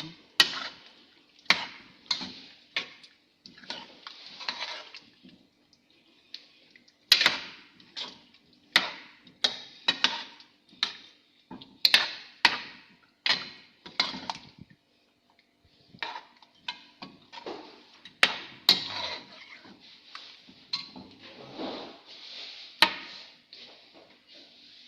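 A metal utensil clinking and scraping against cookware, with sharp irregular knocks about once a second and short scraping strokes between them.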